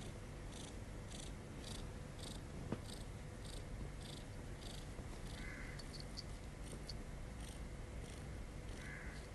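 Kitten purring steadily while being petted, the purr pulsing softly about twice a second. A faint click comes about three seconds in.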